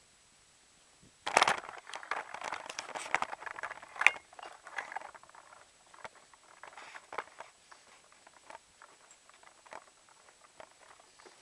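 Footsteps on sandy, gravelly ground: a dense run of gritty crackling steps starting about a second in, with one sharper click around four seconds, then sparser, quieter steps.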